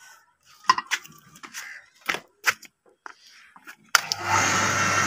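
A few scattered clicks and knocks, then about four seconds in a switch clicks and an electric water pump motor starts up, running with a steady hum and hiss.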